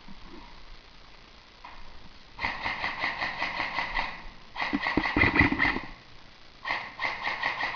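Airsoft electric gun firing on full auto in three bursts of rapid, evenly spaced shots, each a couple of seconds or less, the middle burst the loudest.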